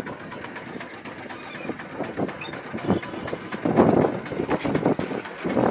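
Strong wind buffeting the microphone in uneven gusts, loudest about four seconds in.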